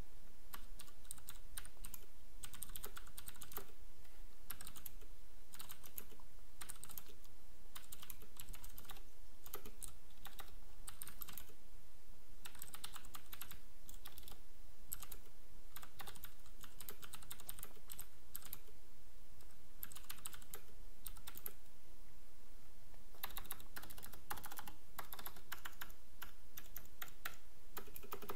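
Typing on a Filco Majestouch 2 mechanical keyboard with clicky Cherry MX Blue switches: rapid sharp key clicks in runs broken by short pauses.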